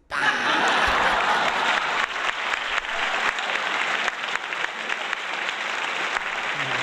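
Theatre audience applauding: loud, dense clapping that starts abruptly and keeps up steadily.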